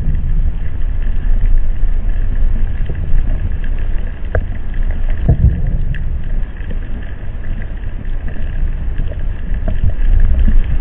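Seismic airgun blasts from oil and gas exploration, recorded underwater at 20 m depth about 20 miles from the source. Deep low thuds come roughly every five and a half seconds, one about five seconds in and another at the very end, over a constant low rumble.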